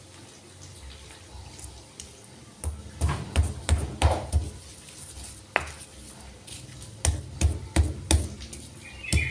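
Stone pestle pounding and grinding lumps of palm sugar into chili paste in a stone mortar (Indonesian cobek and ulekan), making dull knocks of stone on stone. The knocks start about two and a half seconds in as a quick run, then settle near the end into a steady beat of about three a second.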